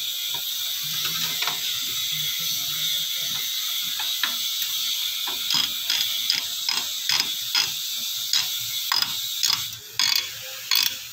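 A run of sharp mechanical clicks, about two to three a second, starting about halfway through, over a steady high hiss.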